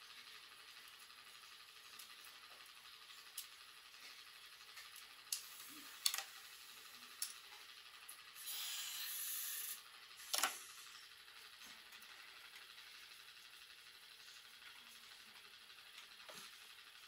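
Small metal tattoo-machine parts and hand tools clicking and tapping on a workbench, a handful of sharp clicks spread over several seconds, with a brief hiss of about a second and a half just past the middle.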